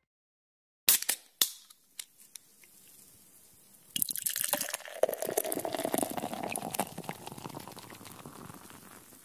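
A few sharp clicks, then liquid pouring from about four seconds in, slowly trailing off.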